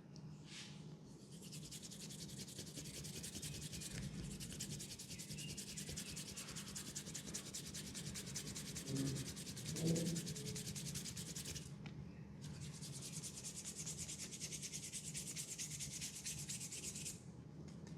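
A barber's hands rubbing briskly during a massage: a dense, scratchy rubbing in two long spells with a short pause about twelve seconds in. A brief low sound about ten seconds in is the loudest moment.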